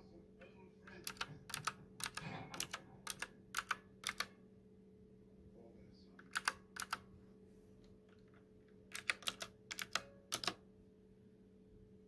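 Typing on a typewriter-style mechanical keyboard with clicky blue switches: three bursts of sharp key clicks separated by short pauses, the longest run about a second in and another near the end.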